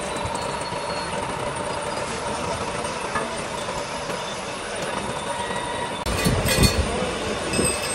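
Steady machinery noise with a faint whine; about six seconds in it changes abruptly to a louder, lower rumble with uneven surges.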